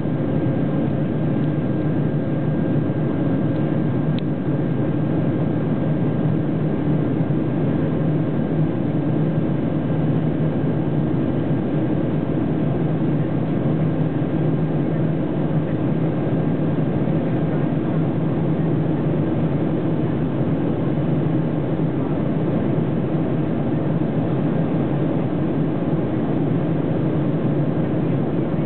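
Steady cabin noise of a jet airliner climbing after takeoff, heard from a window seat: engine and airflow rumble at an even level, with a faint steady whine above it.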